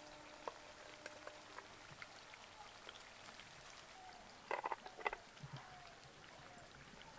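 Pithas faintly sizzling as they deep-fry in medium-hot vegetable oil in a kadai, with a few light utensil knocks about four and a half and five seconds in.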